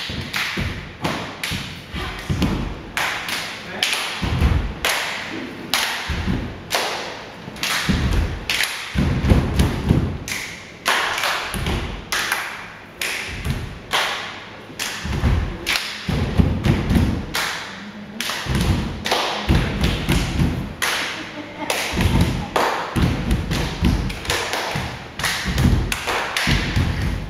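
Bare feet stomping and landing on wooden boxes and a wooden floor: a dense, irregular run of heavy thuds and lighter taps.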